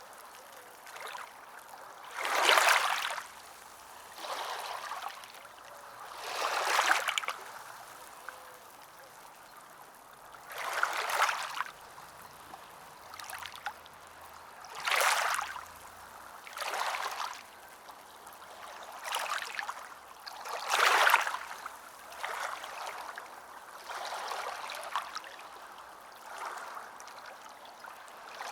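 Ocean waves washing ashore: a hissing surge of water rises and falls every few seconds, with a steadier wash between the larger waves.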